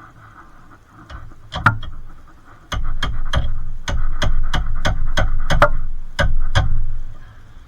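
Ratchet wrench clicking in quick repeated strokes, about three clicks a second, over a low rumble while a nut is tightened on the suspension.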